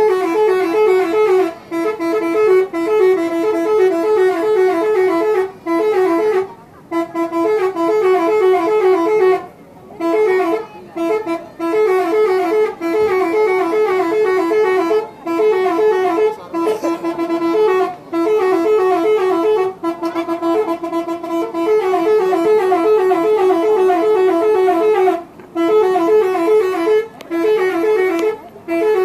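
Telolet multi-tone bus horn playing a tune: quick runs of alternating notes, broken by short pauses every few seconds.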